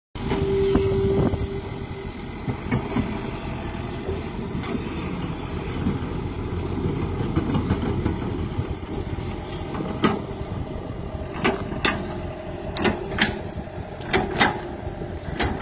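Tracked hydraulic excavator's diesel engine running under load as the bucket digs in the canal, with a brief steady tone near the start. From about two-thirds of the way through, a series of sharp knocks comes over the engine.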